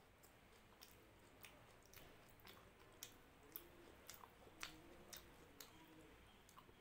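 Faint close-up eating sounds: closed-mouth chewing of rice and dal with scattered sharp wet clicks, and the soft squish of fingers mixing rice and dal on a plate.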